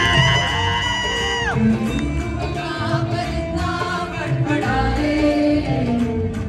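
A group of singers performs a song live into microphones over steady instrumental accompaniment. A high vocal note is held through about the first second and a half, then the melody moves on.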